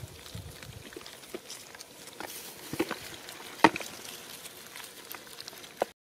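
Scattered light taps, slaps and rustles of stranded fish and searching hands on dry, cracked rice-field mud and straw, with one sharper click about three and a half seconds in; the sound cuts off suddenly just before the end.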